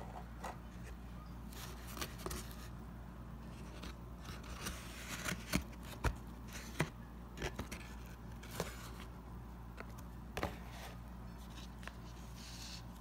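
Cardboard takeout box and plastic food containers being handled on a desk: scattered taps, clicks and scrapes, the sharpest about midway through, over a steady low hum.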